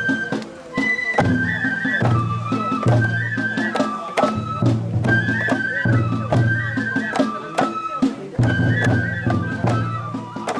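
Traditional Japanese festival music: a flute playing a short, repeating high melody over pulsing drum beats and sharp percussive strikes.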